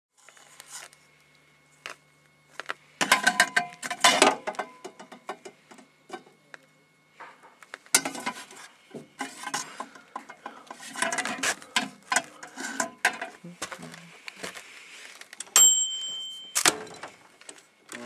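Handling noise: rustling aluminium foil and clattering of small parts being moved about, in irregular clusters of clicks and knocks. A short, steady high tone sounds about two and a half seconds before the end.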